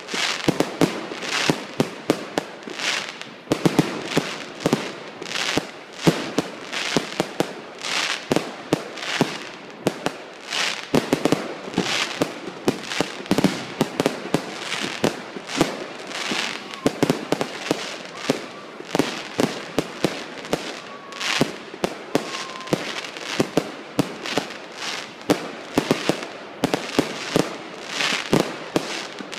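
Aerial fireworks going off in quick succession: a continuous barrage of sharp bangs and pops, several a second, over a hissing crackle from the bursting stars.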